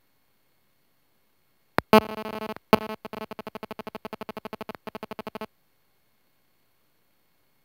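Electronic sound effect: a sharp click, then a buzzy pitched tone that breaks into rapid even pulses, about ten a second, for a few seconds and cuts off suddenly, with total silence around it.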